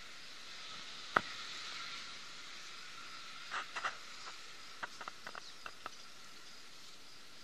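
Pencil drawing on paper in short strokes: a sharp tick about a second in, then a run of small scratchy ticks through the middle, over a steady faint hiss.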